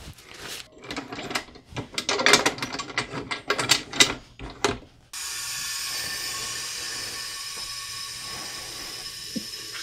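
Quick clicks and rustles as nitrile gloves are pulled off and the pressure pot is handled, then, about five seconds in, a steady hiss of compressed air starts suddenly as the pressure pot is pressurised for resin casting.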